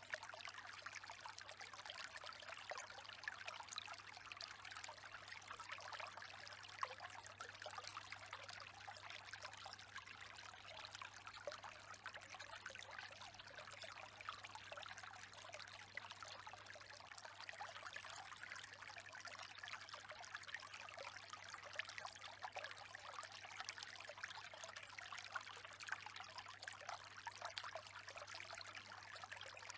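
Faint, steady sound of running water, like a trickling stream, over a low steady hum.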